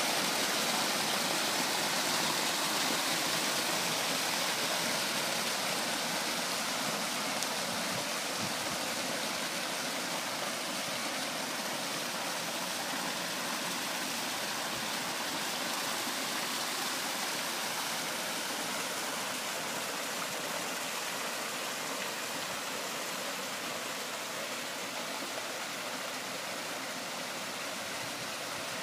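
Steady rush and splash of a stone waterfall pouring into a swimming pool grotto, growing slightly quieter over time.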